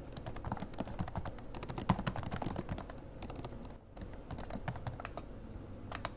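Typing on a computer keyboard: quick, irregular key clicks, with a short pause a little past the middle.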